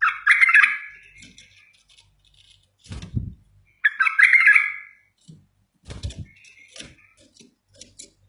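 Bulbul singing two short warbled phrases, one at the start and one about four seconds in. Dull low thumps come near the middle and about six seconds in.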